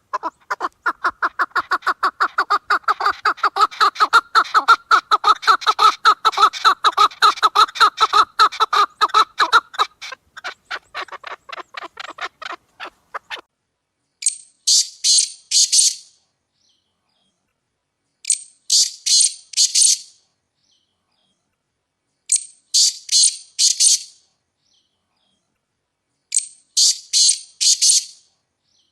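Poultry calling: a fast run of calls at about six a second that fades out after about twelve seconds, then four short bursts of high chirps, one about every four seconds with silence between.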